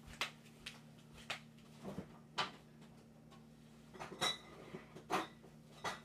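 Scattered knocks and clicks of kitchen cupboards, a door and containers being handled off to one side, about ten short strokes over a few seconds. A steady low hum runs underneath.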